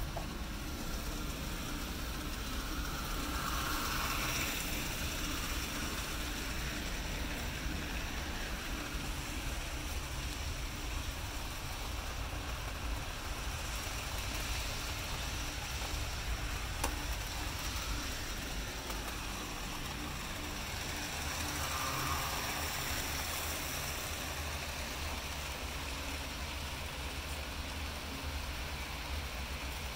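Model trains running on a layout: a steady rolling rumble of wheels on the track with a continuous hiss.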